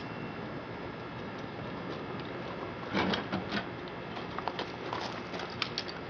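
Metal clicks and clatter as the lock collar comes off an electric meter and the meter is pulled from its socket on a multi-meter service panel. A burst of clatter comes about three seconds in, followed by a few sharp single clicks.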